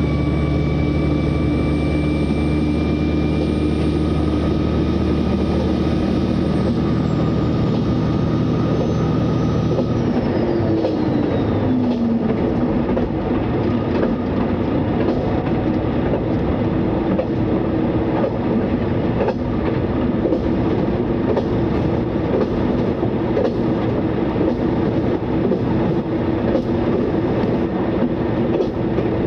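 KiHa 120 railcar's Komatsu diesel engine pulling under acceleration, its pitch creeping up, then gliding down between about seven and twelve seconds in. After that the railcar runs on with a steady hum and its wheels clicking over rail joints.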